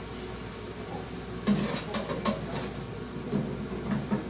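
Spoon stirring a sauce in a large aluminium pot on a gas stove, with irregular scrapes and light knocks of the spoon against the pot.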